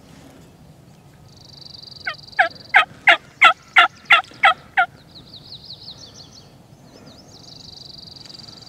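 Turkey yelping: a loud series of about nine yelps, roughly three a second, each note dropping in pitch, from about two seconds in to about five. Small songbirds trill and warble high and thin around it.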